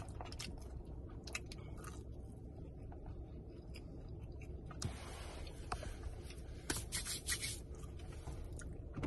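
Quiet sounds of someone chewing food, with scattered small clicks and rustles, a few louder ones a little past the middle, over a low steady hum in a car cabin.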